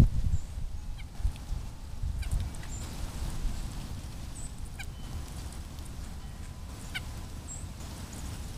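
Small songbirds giving several short, high, thin call notes, plus a couple of quick descending strings of notes, over a steady low rumble. The rumble is loudest in a burst at the very start, with a few dull thumps.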